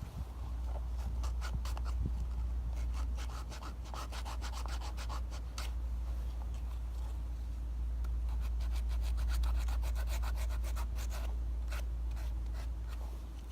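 Sandpaper rubbed by hand over a wooden sickle handle in quick back-and-forth strokes, with a steady low rumble underneath.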